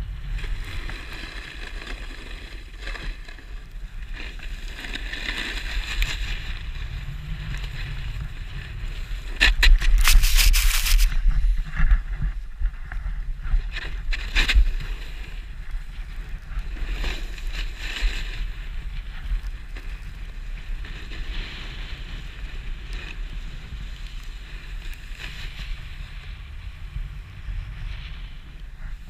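Skis sliding and scraping over snow in turns, with wind noise on the microphone; a louder, harsher stretch about ten seconds in.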